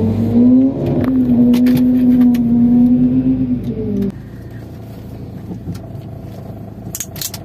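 Car engine at high revs: the pitch climbs about a second in, holds steady for a few seconds, then cuts off suddenly about four seconds in, leaving a lower, quieter engine rumble.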